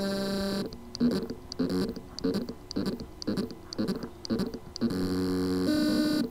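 Seagate SV35 hard drive with loose spindle-motor contacts trying to spin up. The motor gives a steady electrical buzz, then a run of stuttering pulses about three a second, then buzzes steadily again near the end. This is the sign of a motor that spins but cannot reach full speed.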